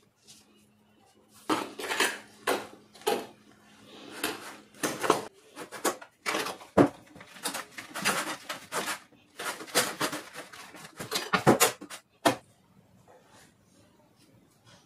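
Hands kneading and squeezing fluffy slime in a glass bowl: a quick, irregular run of sticky squelches and pops, with small knocks against the glass. It starts about a second and a half in and stops about twelve seconds in.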